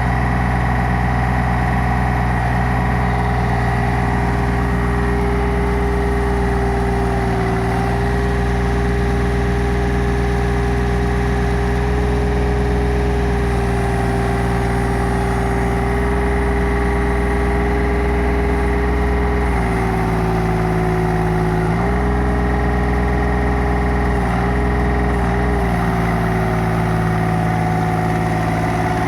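Orteco 1000HD pile driver's engine running steadily, with a steady tone over it that dips slightly in pitch a few times in the last third.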